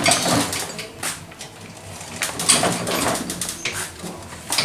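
Steel welding trolley being pushed across the floor: its wheels rolling and scraping, with several sharp knocks and rattles.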